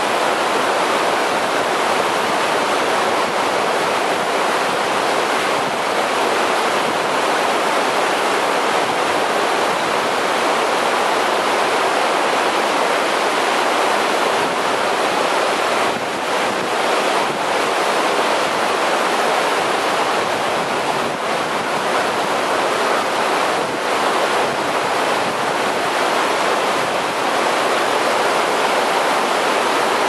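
River water pouring steadily over a low rock ledge into a churning pool: the continuous rush and splash of a small waterfall.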